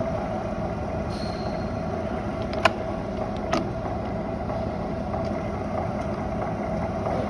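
Clausing 20-inch variable-speed drill press running with a steady hum. Two sharp clicks come about a second apart, a little under three seconds in.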